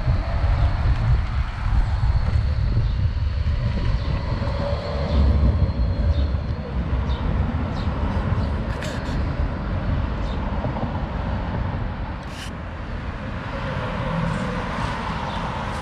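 A city tram rolling past on its street tracks amid road traffic, then cars and a van going by. A few sharp clicks in the second half.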